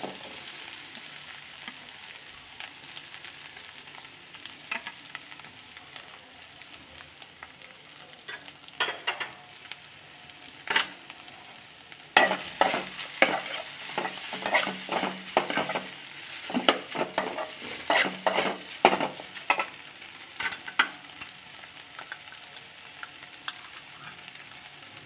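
Chicken pieces sizzling in oil and butter in a metal kadai. From about halfway through, a metal spatula stirs them with repeated scrapes and clicks against the pan.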